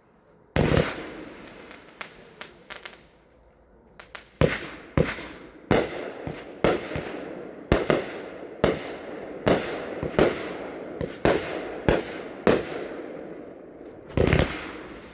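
A 35-shot consumer firework cake firing. There is a loud report about half a second in, then a pause with a few small pops, then a run of loud shots roughly one every half to one second, and a last one near the end. Each report rings out briefly.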